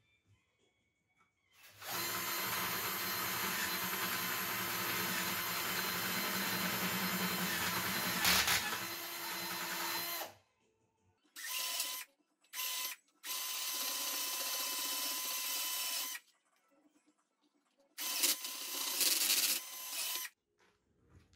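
Power drill boring holes through a third brake light housing, run in bursts: one long run of about eight seconds, then a few short bursts and two longer runs.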